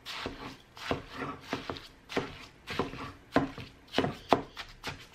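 A kitchen utensil mashing and stirring raw ground beef with egg and panko crumbs in a glass bowl: repeated wet, squelching strokes with scraping against the bowl, about two a second.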